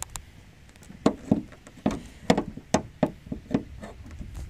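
Car hood being unlatched and raised: a series of sharp knocks and clicks, roughly two a second.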